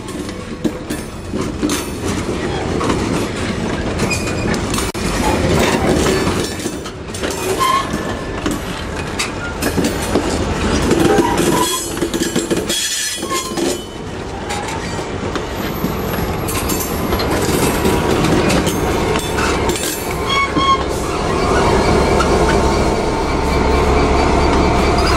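British Rail Class 03 diesel shunter D2112, with its Gardner engine, running as it hauls a rake of empty wagons. The wheels clatter and knock over the rail joints throughout, and a steady tone comes in near the end.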